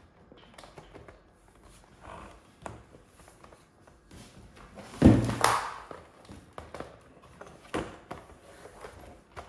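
Handling noises from a plastic hose reel and its garden hose as the hose is fed onto the drum: scattered light clicks and taps, with one louder thump and rustle about five seconds in.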